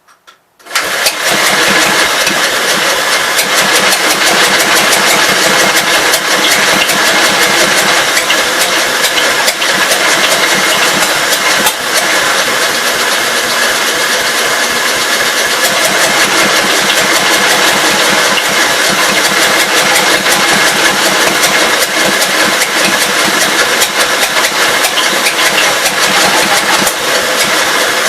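Electric starter cranking the 1952 Gravely Model L's single-cylinder engine in one long, unbroken crank. It comes in suddenly about a second in, holds steady and fast, and stops abruptly at the end.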